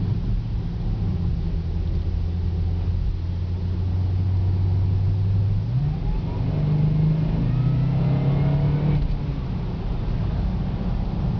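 2009 Cadillac CTS-V's supercharged 6.2-litre V8 and road noise heard from inside the cabin while driving. About six seconds in the engine note rises as the car accelerates for a few seconds, then settles back to a steady cruise.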